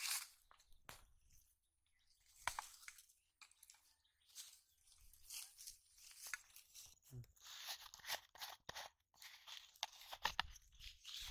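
Handling sounds: dry leaves and plastic crackling and rustling in short bursts with sharp clicks, ending with a plastic bottle's screw cap being twisted open.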